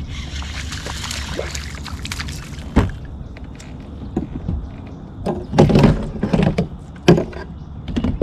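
Hollow knocks and thumps on a plastic fishing kayak as the angler casts and handles his rod and gear. A steady rushing noise fills the first few seconds, then come a sharp knock, a run of thuds in the middle and another sharp knock near the end.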